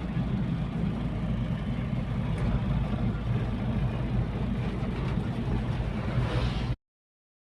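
Steady vehicle engine and road noise from a moving motor vehicle, a low rumble with a hiss over it. It cuts off suddenly near the end.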